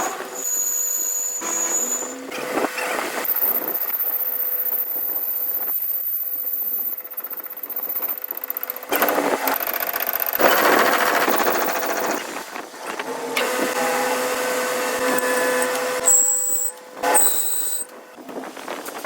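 Metal-workshop machine and power-tool sounds, a run of short stretches that change every few seconds, several with a steady whine.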